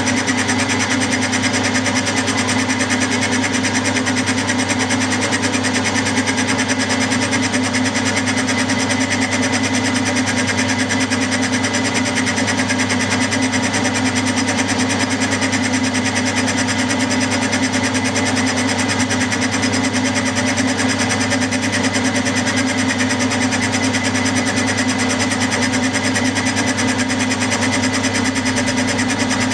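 Milling machine running a 60-degree dovetail cutter along the bedway of a cast-iron model lathe bed: a steady machining sound with a fast, even pulsing that does not change.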